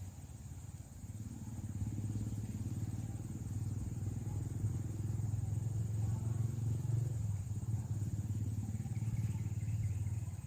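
A small engine running with a low, steady drone, growing louder over the first couple of seconds and then holding.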